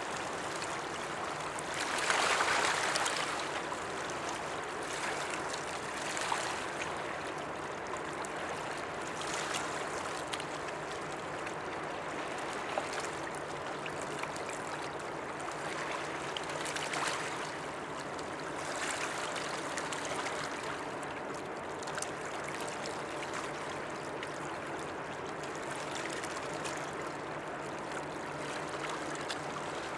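Water lapping and washing against the river shore, coming in soft surges every two to three seconds, the largest about two seconds in. Beneath it runs a faint, steady low drone.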